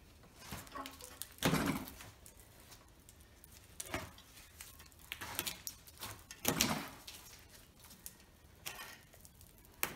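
Heavy rusted steel shield plate being lifted, turned around and set back down on cardboard packing: a series of scrapes and dull knocks, the loudest about one and a half seconds in and again near seven seconds.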